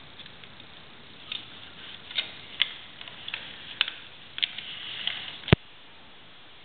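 Screwdriver turning the fixing screws of a flush-mounted double wall socket: a run of irregular small clicks, with one sharper click about five and a half seconds in.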